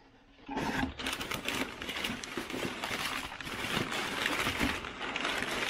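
Packaging rustling and crinkling with many small clicks and knocks, starting about half a second in, as a box of parts is unpacked.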